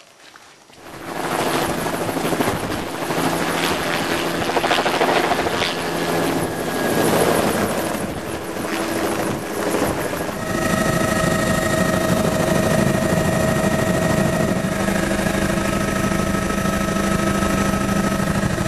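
Helicopter flying overhead, its rotor chop coming in about a second in. About ten seconds in it changes abruptly to the steady engine and rotor drone heard inside the helicopter's cabin in flight.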